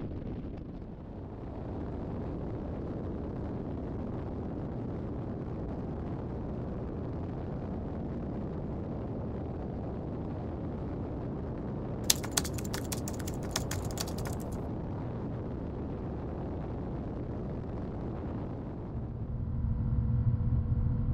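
Light single-engine propeller aircraft taking off and climbing, heard from a camera on its tail: a steady rush of wind and engine noise, with a short patter of clicks about twelve seconds in. Near the end it grows louder, with a steady engine-and-propeller hum as heard inside the cockpit.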